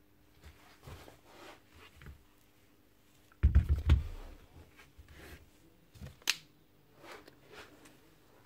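Handling noises from tools and drill parts on a concrete floor: scattered light clicks, a few heavy knocks about three and a half seconds in that are the loudest part, and a sharp click a little after six seconds.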